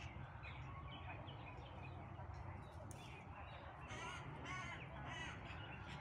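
Eurasian magpies calling: three harsh calls in quick succession in the second half, over faint scattered chirping of small birds.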